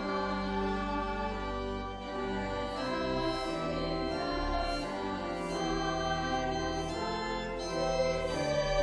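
Music with held, organ-like chords that change every second or so, and soft swishes of hiss every second or so above them.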